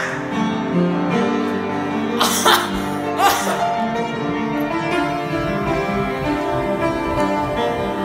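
Upright piano being played in slow, held chords. Two short noisy bursts come about two and three seconds in.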